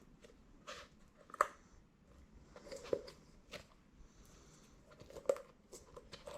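Scattered light clicks and knocks of removed car parts being handled and set down, four sharper knocks standing out among softer rustling.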